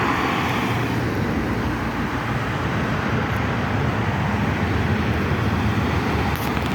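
Road traffic with a heavy diesel engine, likely a bus, running steadily close by as a low, even rumble.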